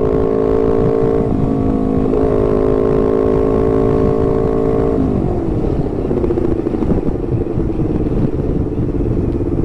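Honda CBR250RR with an aftermarket R9 GP racing exhaust running at a steady engine speed. About five seconds in the revs drop as the throttle is eased off, and the note settles lower and steady. Wind rushes over the microphone throughout.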